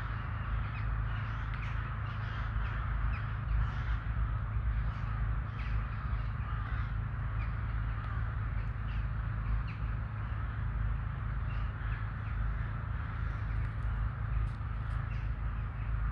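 A flock of crows calling, many short caws overlapping throughout, over a steady low rumble.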